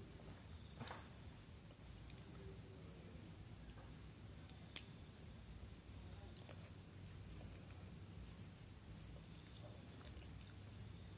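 Crickets chirping faintly: short, high-pitched chirps repeating irregularly, about one or two a second, over a low steady hum, with an occasional soft click.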